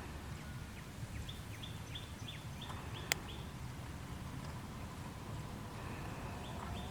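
A bird calling a quick run of short, falling high chirps, about three a second, with a few more near the end, over a steady low rumble. A single sharp click comes just after three seconds in.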